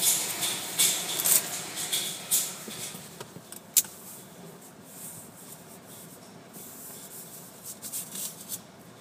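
Hand-held spray wand pre-soaking the car, heard from inside the cabin as hissing bursts. The bursts fade out about two and a half seconds in and come back briefly near the end. There is one sharp click almost four seconds in.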